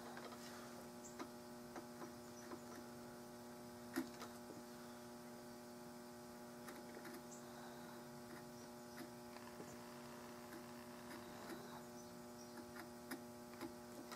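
Steady mains hum with faint, irregular clicks and scratches from a hand checkering tool cutting lines into a walnut rifle stock; one sharper click about four seconds in.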